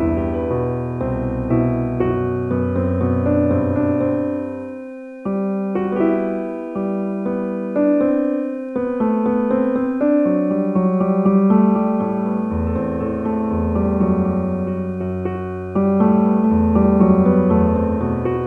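Slow background piano music, sustained chords changing every few seconds, with two brief dips in loudness about five and eight seconds in.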